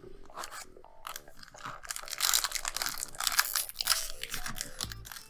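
Foil booster pack wrapper of Magic: The Gathering cards crinkling and tearing as it is opened by hand. The crackle is loudest from about two seconds in until shortly before the end.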